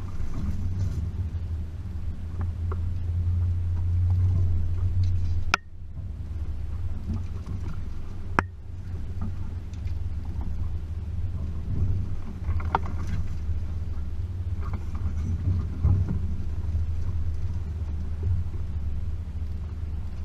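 Range Rover P38's 4.0-litre V8 engine running at low speed, a steady low drone. Two sharp clicks break in, about five and a half and eight and a half seconds in.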